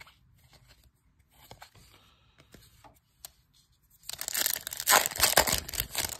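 Plastic-foil trading card pack wrapper being crinkled and torn open, loudly, starting about four seconds in. Before that, only faint rustles and taps of cards being handled.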